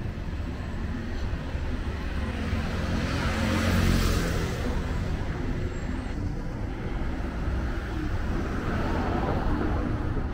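Street traffic, with a vehicle passing close by that swells to its loudest about four seconds in and then fades. A smaller swell, another passing vehicle, follows near the end.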